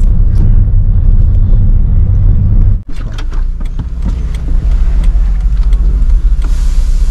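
Car engine and road rumble heard from inside the cabin while driving, broken by a sudden cut about three seconds in. After it the low rumble of the stopped car goes on, with clicks and knocks as a rear door is opened and a passenger climbs out.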